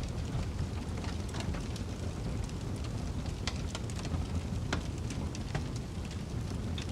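Wood fire crackling in a fireplace: sharp, irregular pops and snaps over a steady low rumble of snowstorm wind.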